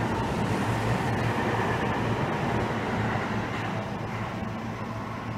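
Electric passenger train running along the track and moving away, its rumble and low hum slowly fading.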